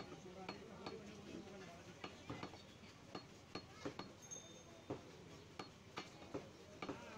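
Butcher's cleaver chopping beef into chunks on a round wooden log block: steady, evenly spaced chops, about two a second.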